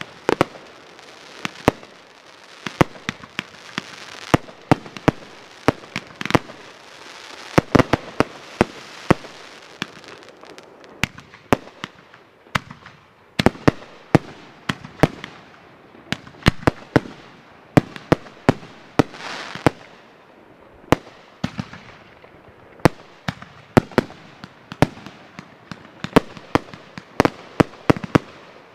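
Aerial fireworks going off in quick succession: a steady run of sharp bangs, several a second at times, over continuous crackle and hiss from shells bursting and lift charges firing from mortar tubes.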